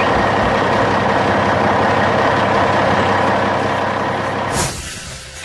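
Heavy truck engine running steadily, with a short hiss about four and a half seconds in, after which the engine sound fades away.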